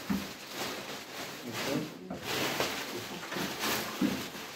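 Clear plastic silage bags rustling and crinkling as they are handled and tied, in irregular bursts, with people's voices in the background.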